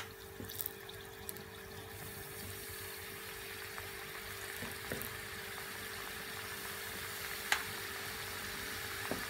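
Flour-coated potato sticks deep-frying in hot oil: a steady sizzle and bubbling that grows slightly louder, with a few sharp pops, the loudest a little past two-thirds of the way through. A faint steady hum runs underneath.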